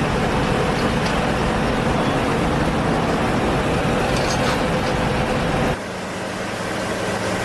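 Heavy vehicle engine running, with a steady whine over a low rumble. About six seconds in it cuts off abruptly to a quieter low hum.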